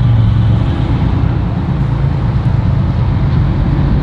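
Steady, loud low drone of a boat's engine running.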